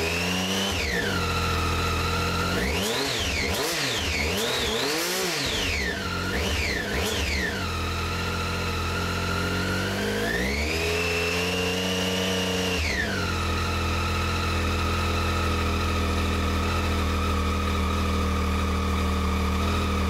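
Triumph Street Triple R's 675 cc three-cylinder engine heard through its standard underseat silencers, idling and revved by hand: a short rev at the very start, a run of about five quick sharp blips from about three to seven seconds in, then a rev held for a couple of seconds around eleven to thirteen seconds, before it settles back to a steady idle.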